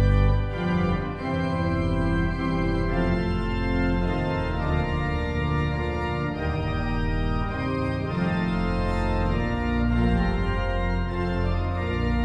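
Church organ playing a hymn in slow, sustained full chords that change every second or so.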